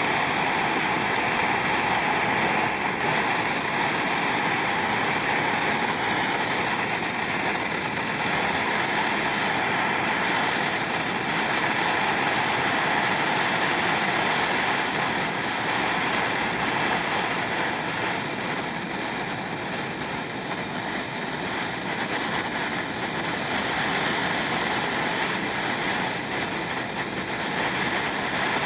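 Handheld MAPP gas torch burning steadily with an even, loud hiss of flame, heating gold powder to melt it down in a melting dish.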